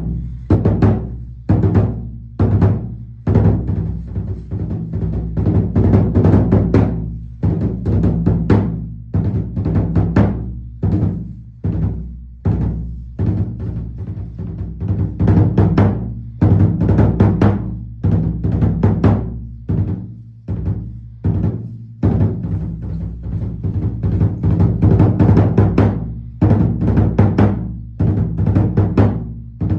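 Kagura taiko drum beaten in a continuous rhythm of repeated strikes, each with a low, booming ring, playing the accompaniment for a kagura dance.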